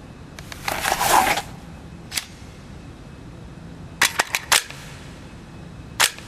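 Semi-automatic pistol being handled: a noisy rush lasting about a second near the start, a single sharp click, then four quick sharp clicks a little past halfway and one more near the end.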